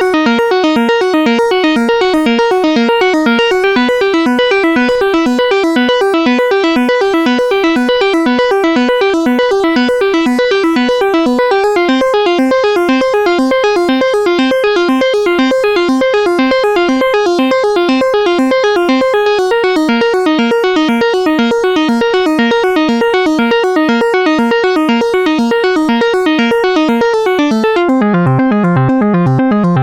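Music played on electric piano or synthesizer keyboard: a quick, steady run of repeating arpeggiated notes. About two seconds before the end, lower notes come in and the high end drops away.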